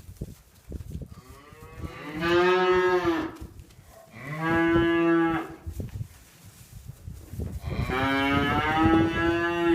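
Calf bawling three times: a call about a second in, a shorter one near the middle, and a long one near the end, with scattered knocks of hooves shifting on the barn floor between them.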